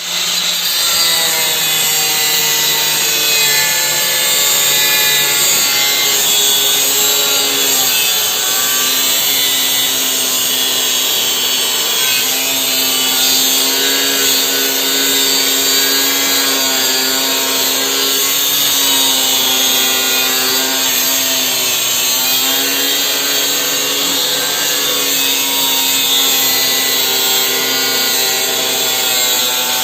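Angle grinder running and cutting continuously, its motor whine dipping and recovering in pitch as the disc is loaded, over a steady hiss of cutting.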